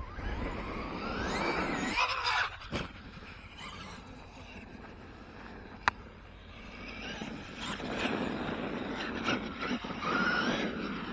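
Radio-controlled trucks driving on a dirt track, their motors whining and rising in pitch as they accelerate, with the hiss of tyres on dirt. One sharp click about six seconds in.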